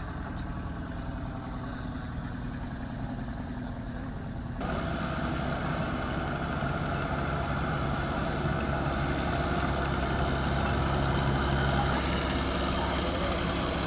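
An engine running steadily. About four and a half seconds in it turns suddenly louder, with more rushing noise above it.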